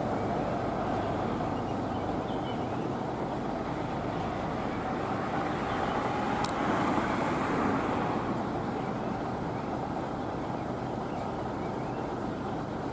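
Steady drone of a moving Hino AK bus heard from inside the cabin: engine and road noise, with a single short click about six and a half seconds in.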